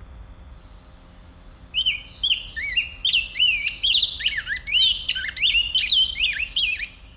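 A songbird singing a fast, continuous warble of rising and falling whistled notes, starting about two seconds in.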